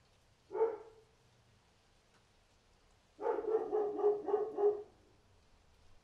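Dog barking: one short bark about half a second in, then a quick run of about six barks a little after the middle.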